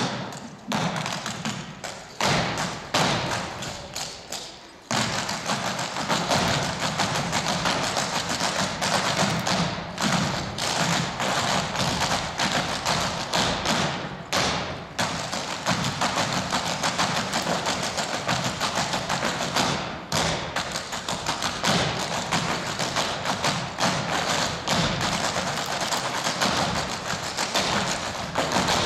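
Clogging shoes with metal taps striking a wooden stage floor in unison, danced a cappella with no music. A few separate stomps in the first five seconds, then a continuous fast clatter of taps.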